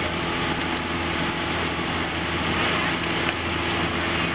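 Boat engine running at a steady speed: a constant low drone with a rushing noise over it.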